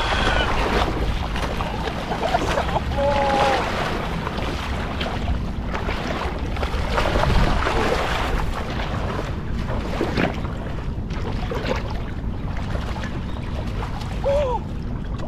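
Steady rushing of wind on the microphone over moving water, with a couple of short sharp sounds about seven and ten seconds in.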